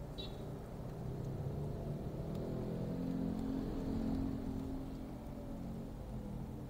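Car engine and road rumble heard from inside the cabin while driving in slow town traffic. The engine note rises from about two seconds in and eases off again after about four seconds.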